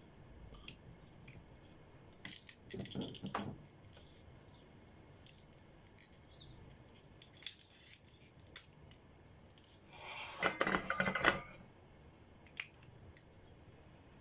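Small tools and parts clicking and clinking as they are handled, with two busier spells of clatter, about two seconds in and again about ten seconds in.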